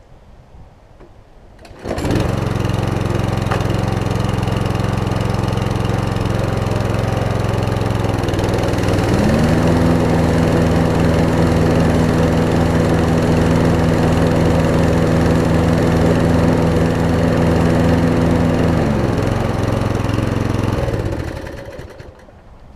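Toro Recycler push mower's small engine starting suddenly about two seconds in and running steadily. Its speed rises about nine seconds in, drops back near nineteen seconds, and it shuts off and winds down near the end. This is a test run after a new blade clutch cable was fitted, which seems to have fixed it.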